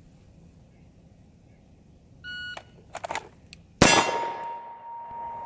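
A shot timer gives its short start beep about two seconds in. A few clicks follow as the pistol is drawn with gloved hands, then a single pistol shot about 1.6 seconds after the beep. The shot is followed by a long metallic ring from the struck steel target.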